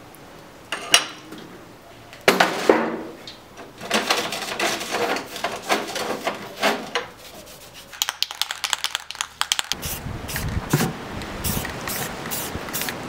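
Acetone poured from a metal can onto a small steel plate, then a rag rubbing and scrubbing the steel, with light metal clinks and scrapes. Near the end an aerosol can of white spray paint is sprayed, over a low rumble.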